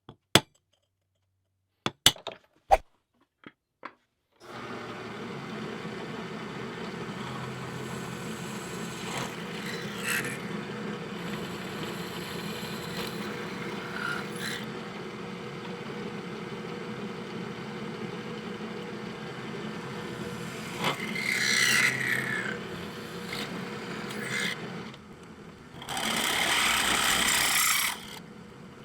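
A few sharp metal clinks, then an electric power tool starts about four seconds in and runs at a steady speed. Louder rough bursts near the end sound like it biting into metal.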